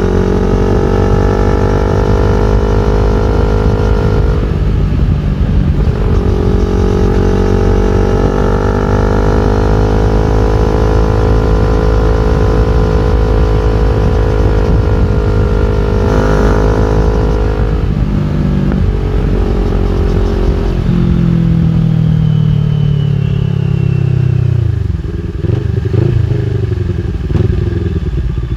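CFMOTO NK400's parallel-twin engine running through an Akrapovic full-system exhaust while riding. The engine pulls at a steady note, with a brief break for a gear shift about four seconds in and another around sixteen seconds. In the last several seconds it rolls off, its pitch falling.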